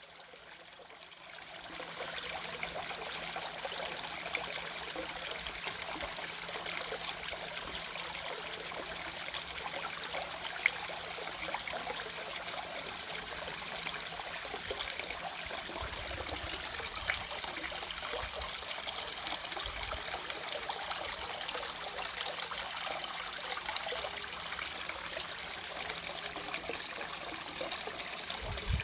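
Water running and trickling steadily, coming up about a second and a half in.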